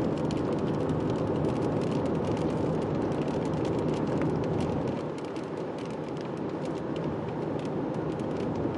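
Steady vehicle cabin noise with a dense patter of raindrops ticking on the windshield and roof; it eases slightly about five seconds in.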